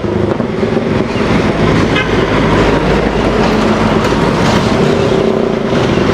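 Diesel bus engines running with street traffic, a steady loud rumble.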